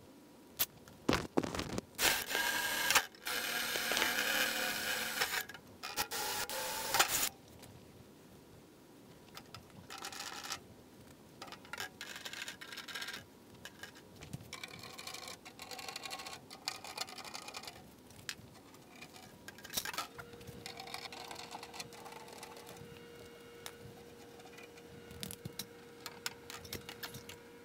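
Workshop handling: tools and aluminium parts clicking and knocking while a battery bracket is fitted to an aluminium firewall, broken by several short runs of a small cordless power tool, the longest about two seconds in. A faint steady hum comes in about two thirds of the way through.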